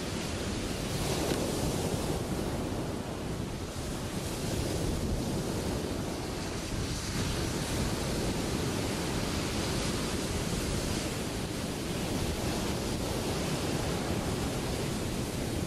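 Ocean surf breaking: a steady rushing wash of white water that swells and eases a little.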